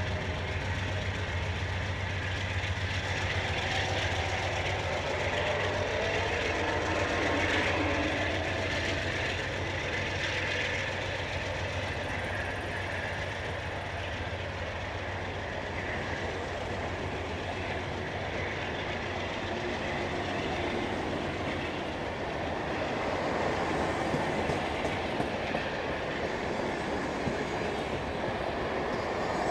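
Amtrak Superliner bilevel passenger cars rolling slowly past as the train pulls away from the station: a steady rumble of steel wheels on rail with light clickety-clack.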